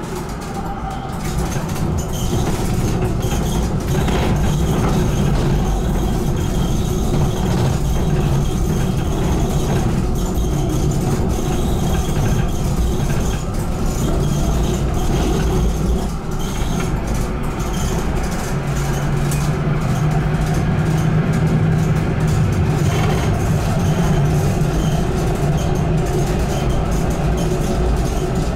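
BN GTL8 articulated tram running over wet track, heard from inside the tram: a steady rumble of wheels on the rails and running gear. A low hum from the drive joins past the middle and holds until near the end.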